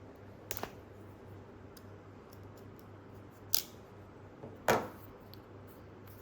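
Three brief, sharp handling sounds from unboxing a ripstop nylon bag, the third the loudest and longest, over a faint steady low hum.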